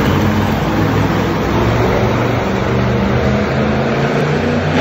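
Bone Shaker monster truck's engine running loud at fairly steady high revs as the truck drives.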